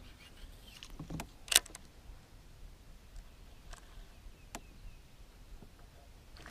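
Fishing gear being handled in a kayak: a few sharp, isolated clicks and taps from the rod, reel and hull while a bait is flipped, the loudest a little over a second and a half in, over a faint outdoor background.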